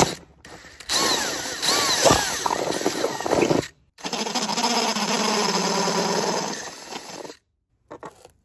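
Cordless drill boring through a metal diamond-plate camper wall: a stretch with a twist bit, its pitch wavering, then after a short break a steadier stretch with a step drill bit, stopping a second before the end.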